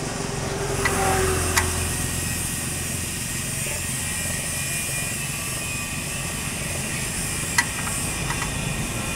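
A few sharp metallic clicks of a spanner on a car's oil-pan drain plug, two near the start and two near the end, over a steady background drone.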